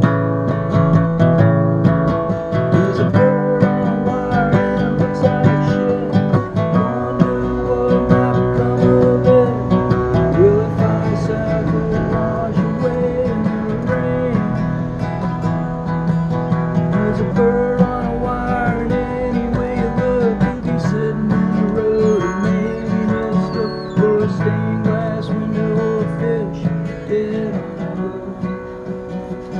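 Live acoustic guitar strummed steadily through a song, with a melody line above it that bends and wavers in pitch.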